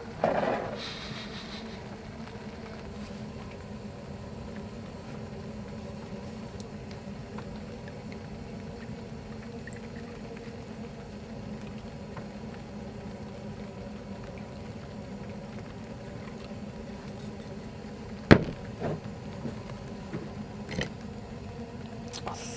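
A steady low hum runs throughout, with a short noise just after the start. About 18 seconds in there is one sharp knock on the wooden table, followed by a few lighter knocks.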